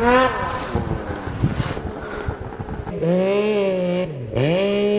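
Snowmobile engine revving up and down over wind noise. About three seconds in, a louder snowmobile engine holds high revs, drops sharply about a second later and climbs straight back up.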